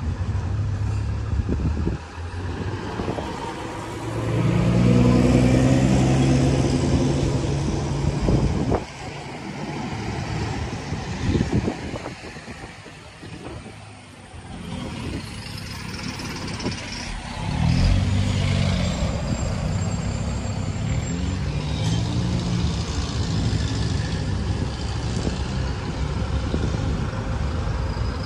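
Buses driving past on the road, their engine notes rising and falling as they go by. The loudest pass comes about five seconds in, another about eighteen seconds in, and there is a quieter lull in between.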